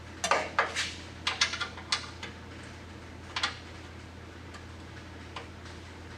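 Sharp metallic clicks and clinks of a small 3/8 wrench working the brake line fitting on a 1964 Dodge D100's front brake: a quick irregular run in the first two seconds, another about halfway through, then a few faint ticks.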